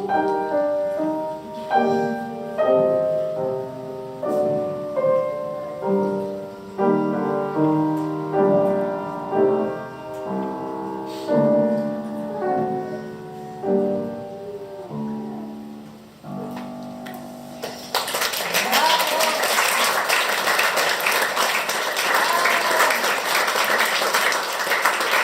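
Solo piano playing the closing bars of a romance's accompaniment, a series of struck chords that each die away, ending on a softer held chord. About eighteen seconds in, an audience breaks into steady applause.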